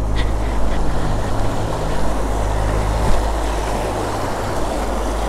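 Tekken 250 motorcycle idling steadily, with the rush of a flowing river over it.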